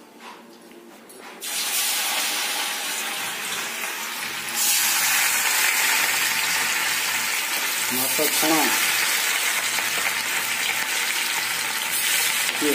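Masala-marinated fish pieces sizzling in hot oil in a steel wok. The sizzle starts about a second and a half in and jumps louder about four and a half seconds in, then holds steady.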